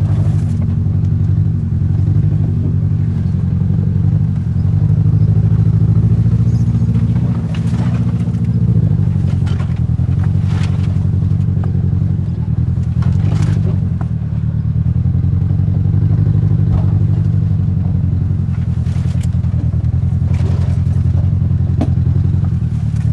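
Car engine running at a low, steady speed, heard from inside the cabin as the car crawls along an off-road trail. A few brief knocks and scrapes are scattered through.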